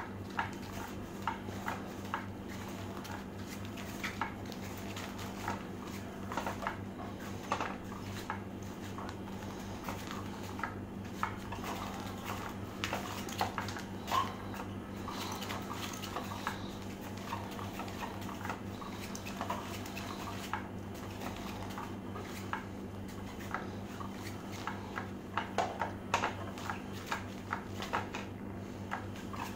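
Motorised hidden-mouse cat toy running: a steady low hum with scattered light clicks and taps as its wand sweeps round under the nylon skirt.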